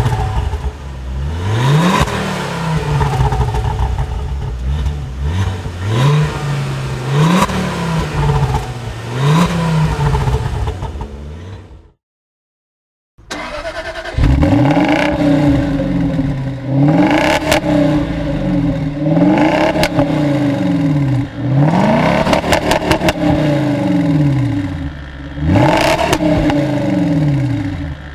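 A Ford Focus ST's turbocharged five-cylinder engine blipped to high revs several times, each rev rising and falling back. It cuts to silence about twelve seconds in. Then a Jaguar XKR's supercharged V8 starts up and is revved repeatedly, about eight quick rises and falls.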